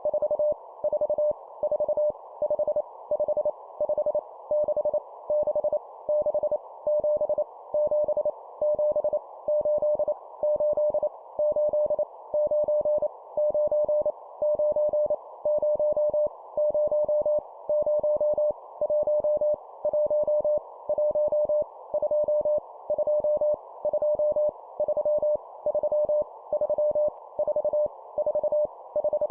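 Morse code (CW) at 25 words per minute: a single steady mid-pitched tone keyed on and off in rapid dots and dashes, sending numbers each repeated three times, over a narrow band of steady hiss.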